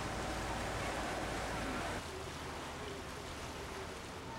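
Boat engine running with a steady low drone over water wash and wind. About two seconds in the drone drops away suddenly, leaving quieter water and wind noise with faint distant voices.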